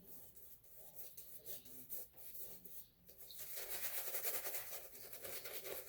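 A shaving brush swishing and rubbing as it works shaving soap into a lather. It is faint at first, then turns to rapid, steady swishing strokes from about three and a half seconds in.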